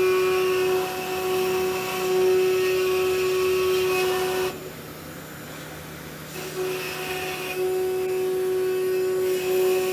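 Spindles of a C.R. Onsrud dual-head CNC router cutting out wooden cutting boards: a steady high whine with the hiss of the cut. It falls away for about two seconds near the middle, then comes back.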